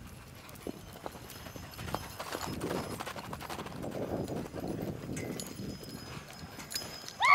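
A horse's hooves clip-clopping on arena ground, the hoofbeats growing louder about two seconds in and easing off again after about five seconds.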